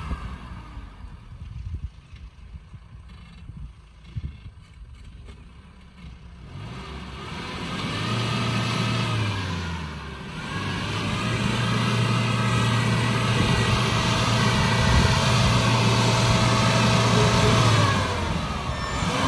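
Mahindra Bolero pickup's diesel engine revving under load on a climb: quiet for the first few seconds, then a short rise and fall in revs about eight seconds in, then held at high revs for about seven seconds before dropping near the end.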